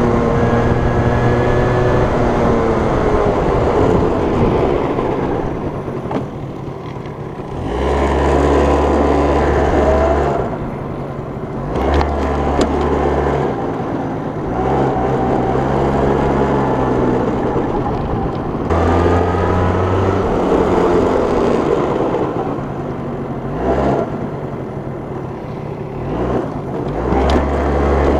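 Yamaha Mint scooter's small two-stroke engine being ridden and revved up and down, its pitch rising and falling with the throttle several times.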